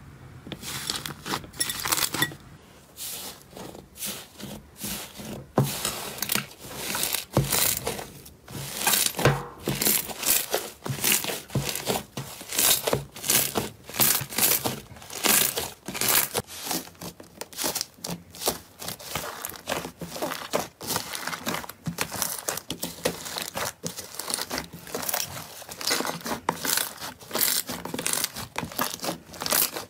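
Hands squeezing, pressing and stretching slime, a dense run of short crackles and pops, several a second.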